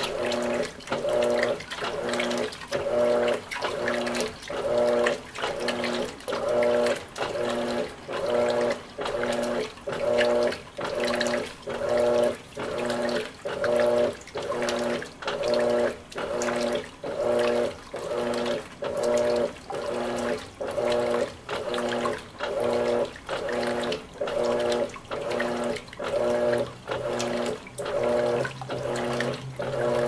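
Electrolux LWI13 washing machine agitating a load of towels in water: the motor whines in even strokes of about one a second, with water sloshing. This is the agitation stage just before the cycle pauses, drains and spins. A low steady hum joins near the end.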